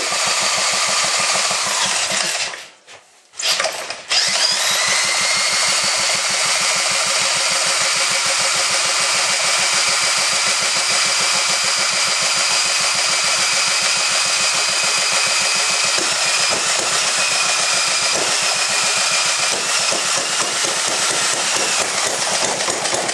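Antique Ironhorse small gas engine, kick-started, running fast with a rapid rattling exhaust beat. It stumbles and cuts out about two and a half seconds in, catches again, and runs steadily from about four seconds on.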